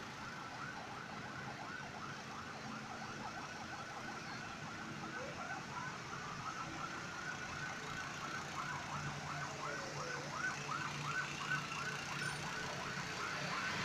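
Vehicle siren in a fast warble of about four chirps a second, with a slow rising wail around the middle and a falling one a little later. Truck engines run low beneath it.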